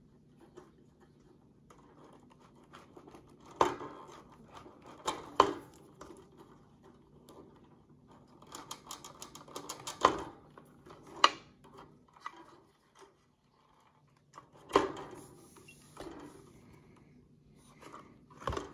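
Plastic wire connectors and cables being pulled off the hash boards of an unplugged Bitmain Antminer L3+ miner: several sharp clicks and knocks a few seconds apart, with light rustling of wires between them.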